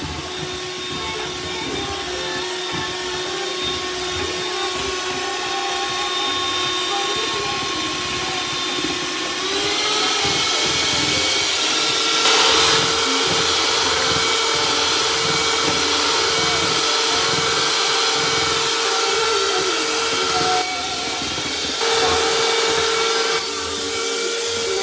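Electric hand mixer running steadily, its beaters whisking egg yolks and sugar in a plastic bowl. About ten seconds in, its motor note rises in pitch and gets louder.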